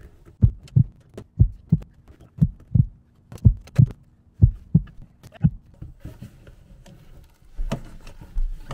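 Rubber exhaust hose being wrenched and tugged off its fitting by hand. It makes dull low thumps, mostly in pairs about once a second for about five seconds, then a single knock near the end.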